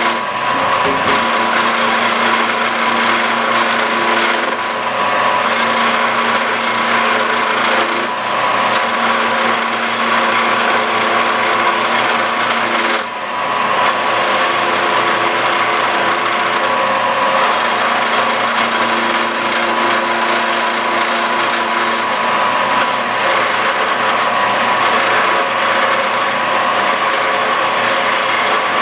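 Shopsmith Mark V running as a lathe while a duplicator's carbide 60-degree triangle cutter cuts a spinning wood blank: a steady motor whine under the hiss and scrape of the cut. The level dips briefly about 13 seconds in.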